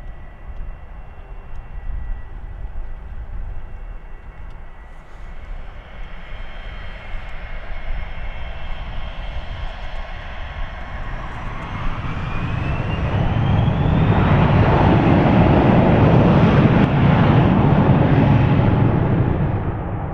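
Pilatus PC-24 business jet's twin Williams FJ44 turbofans at takeoff. A steady whine turns into a rising whine about twelve seconds in as the engines spool up, then builds to a loud jet roar that drops off sharply near the end.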